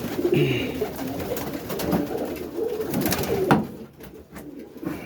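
Roller pigeons cooing in a loft, low warbling calls overlapping one another, with one sharp knock about three and a half seconds in.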